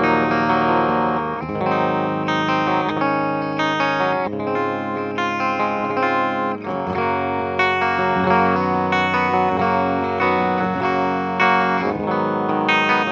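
Spear SSV SE flying-V electric guitar played through a Fender amp on its active bridge humbucker: a continuous run of picked notes and chords.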